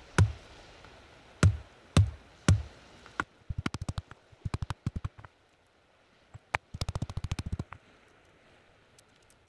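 A hand-held river stone pounding a stick on a stone anvil to split it without any cutting tool. It gives heavy thuds about every half second, then quick rattling runs of knocks, and the knocking stops about three-quarters of the way through.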